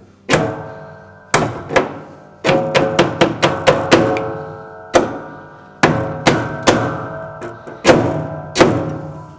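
Soft-faced hammer tapping metal spring clips onto the rim of a front-load washer's plastic outer tub: about fifteen irregular strikes, each leaving the hollow tub ringing briefly, with a quick run of taps about three to four seconds in.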